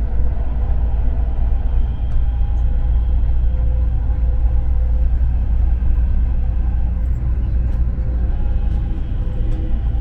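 Dubai Metro train running along elevated track, heard from inside the car: a steady low rumble with faint, steady whining tones above it.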